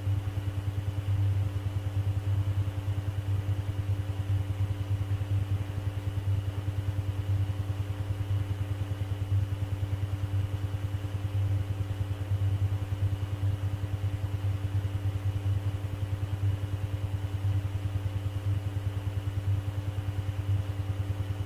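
Steady low hum with a few faint steady tones above it, pulsing rapidly and evenly: the background noise of an air traffic control radio recording between transmissions.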